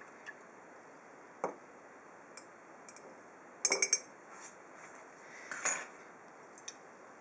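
Glass graduated cylinder clinking and rattling against a tiled bench as it is swirled to dissolve copper sulfate and tartaric acid in water. Scattered single clinks, with a quick rattling run about halfway through and another a little later.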